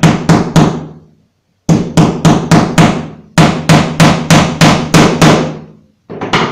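Claw hammer striking a plastic shelf pin into a melamine cabinet panel on a workbench. The strikes come in quick runs of about three to four a second, separated by short pauses, with two more near the end.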